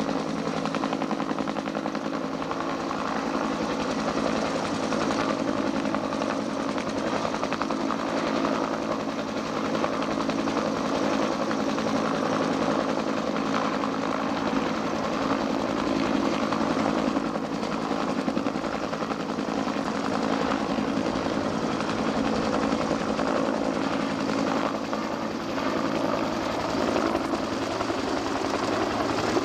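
UH-1 Huey helicopter hovering, its two-blade rotor and turbine engine making a steady drone.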